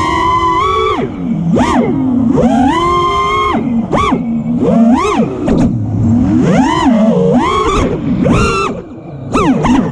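Brushless motors and props of a 5-inch FPV freestyle quadcopter whining as the throttle is punched and chopped, the pitch swooping up and down over and over with short steady stretches. The sound drops briefly near the end.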